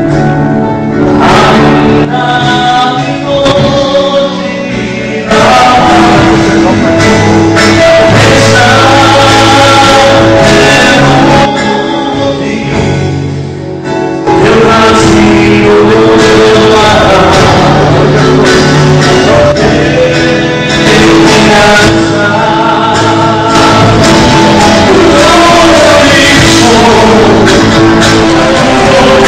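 Gospel music: choir voices singing sustained lines over instrumental backing, with two briefly quieter stretches.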